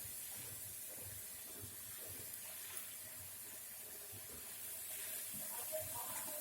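Faint, steady hiss from a pan of vegetables cooking in a little water, with soft scattered knocks of the spinach and utensils being handled.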